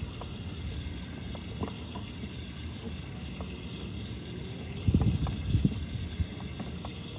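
Water gurgling low in a root-blocked sewer line, with scattered small knocks and a louder run of knocking about five seconds in.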